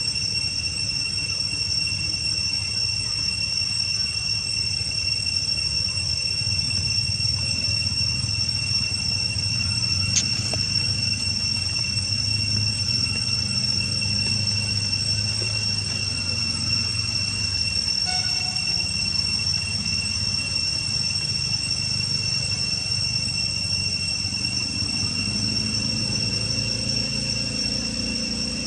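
A steady high whine at two pitches, unchanged throughout, over a low rumble, with one sharp click about ten seconds in.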